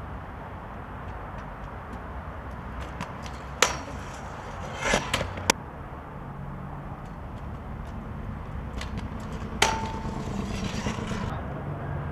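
Kick scooter wheels rolling on concrete, getting a little louder toward the end as it approaches, with sharp clacks of the scooter on the pavement: one about three and a half seconds in, a quick cluster around five seconds, and another near ten seconds.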